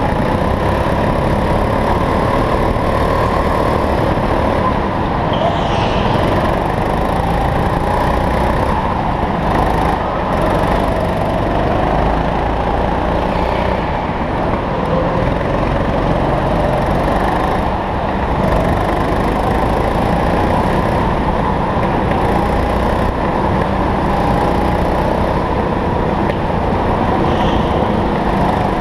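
Go-kart engine running hard, heard from on board, its pitch rising and falling as the kart accelerates and slows through the corners. A brief high squeal comes about five seconds in and again near the end.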